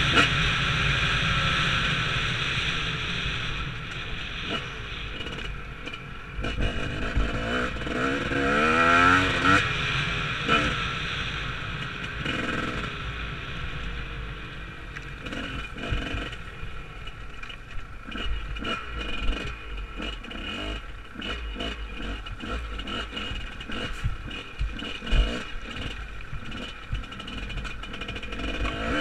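Enduro dirt bike's engine running under load, its revs rising and falling several times as the throttle is worked, with rattles and knocks from the bike over rough, rocky ground.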